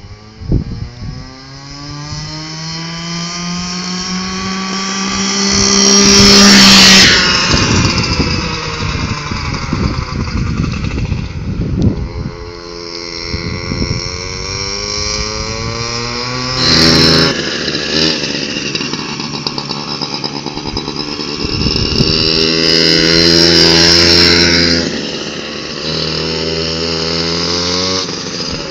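Small engine of a home-built go-quad kart running at high revs through the whole stretch, its pitch climbing as it accelerates and dropping as it slows several times. It is loudest as the kart passes close, about a quarter of the way in and again past the three-quarter mark.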